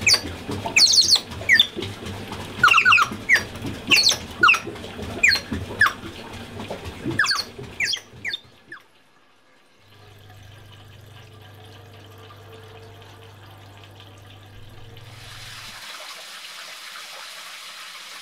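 Birds chirping with quick falling calls for the first half. After a short quiet spell a low steady hum comes in, and about three-quarters of the way through water starts gushing from a brass pipe outlet into a bucket in the water-powered cuckoo clock's works.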